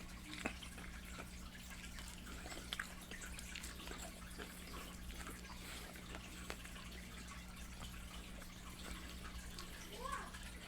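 Close-miked eating mouth sounds: sparse wet smacks and clicks of chewing over a steady low electrical hum. Near the end there is a short voiced sound that rises and falls in pitch.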